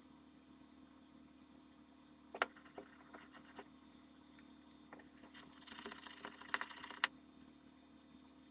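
Faint clicks and knocks of small steel rifle parts handled on a wooden workbench, the sharpest one about two seconds in, then a short stretch of scratchy rubbing with 0000 steel wool on a rusty part, over a faint steady hum.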